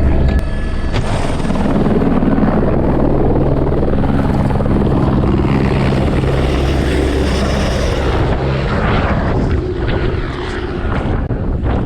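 Helicopter in flight, a loud steady drone of rotor and engine that eases slightly near the end.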